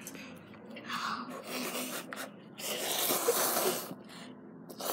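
A child slurping and chewing instant noodles from the cup: a short slurp about a second in, then a louder, longer one of about a second near the middle.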